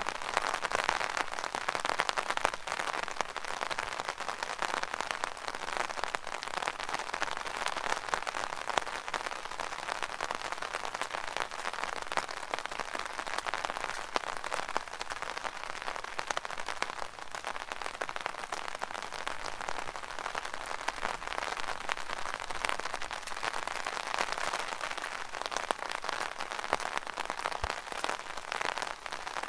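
Steady rain falling on an umbrella canopy: a dense, even hiss of countless small drop hits.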